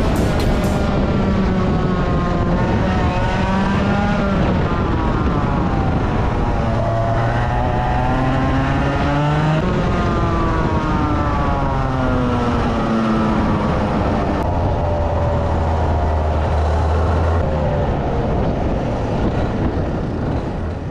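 125cc two-stroke kart engine heard onboard, revving hard and dropping back again and again as the kart accelerates and brakes through the corners, its pitch rising and falling. Near the end the revs fall low as the kart slows.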